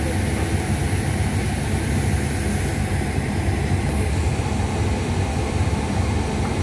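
Steady low rumble of a ship's engine and machinery, running evenly without change.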